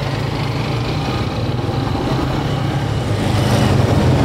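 Motorcycle engine running steadily on the move, growing a little louder near the end.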